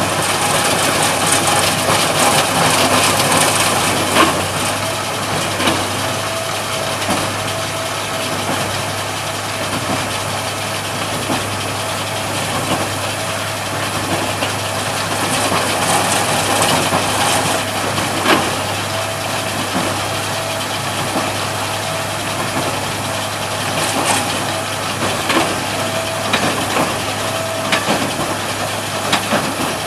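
Tractor engine running steadily while driving a Hesston 4790 square baler, with scattered short knocks and clatter from the machinery.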